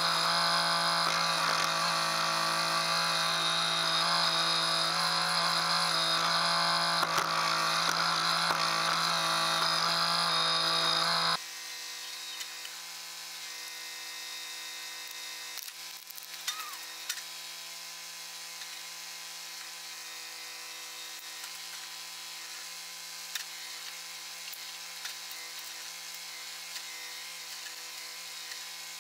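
Kubota tractor's diesel engine running steadily at working speed while its backhoe digs. It is loud and close for about the first eleven seconds, then suddenly much quieter and more distant, with a few light knocks.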